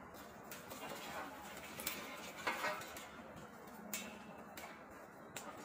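A few faint, sharp clicks and knocks spaced a second or so apart, over a quiet background.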